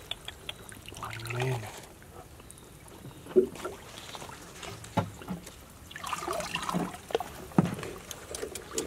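Shallow stream water sloshing, splashing and dripping as a woven bamboo basket is dipped and lifted, with three sharp splashes and busier sloshing near the end.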